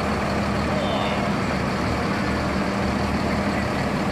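Mercedes-Benz OF1623 bus's front-mounted six-cylinder diesel engine running steadily at low revs as the bus pulls slowly away: an even low drone.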